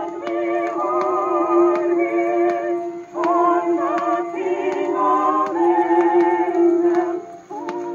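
A 78 RPM Victor shellac record playing on an Admiral 6F11-N record changer: an old recording of a singing voice with wide vibrato over a steady held low note. A faint surface click repeats about every three-quarters of a second, about once per turn of the disc.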